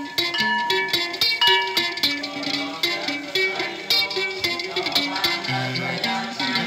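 Background music: a melody of short plucked-string notes.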